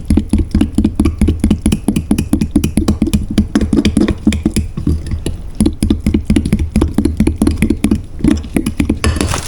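Cornbread batter being stirred briskly in a mixing bowl, the utensil knocking against the bowl about five times a second in a steady rhythm, with a brief pause near the end.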